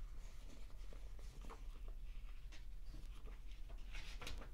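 Paper pages of a picture book rustling and ticking faintly as they are handled and a fold-out page is opened, with a short cluster of crisper paper sounds about four seconds in.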